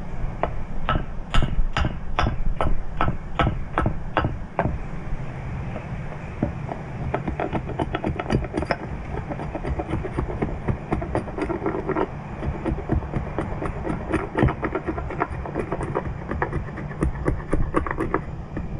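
Axe chopping a wooden spoon blank: a run of about ten sharp strikes, two or three a second, then lighter, quicker chops and knocks for the rest. Wind rumbles on the microphone underneath.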